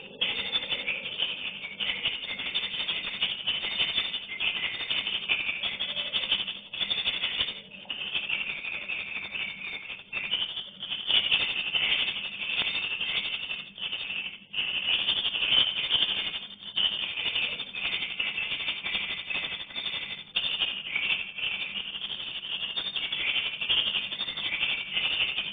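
Many edible-nest swiftlets flying inside a swiftlet house, making a continuous dense rattle of clicking and chirping calls that dips briefly a few times.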